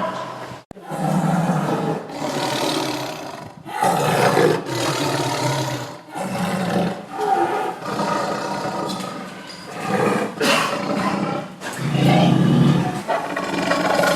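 Tiger roaring and growling again and again: a run of rough calls about a second or two each, one after another, with a brief sudden drop-out just under a second in.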